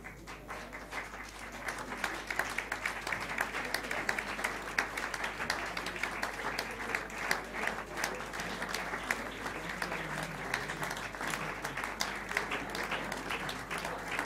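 Audience applauding, many hands clapping at once; it swells within the first second and then holds steady.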